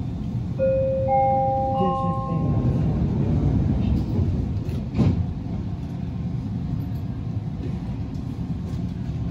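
Canada Line SkyTrain's door-closing chime: three tones, each higher than the last, sounding one after another and ringing on together, over the steady low hum of the train at the platform. A single sharp knock follows about five seconds in, just before the train departs.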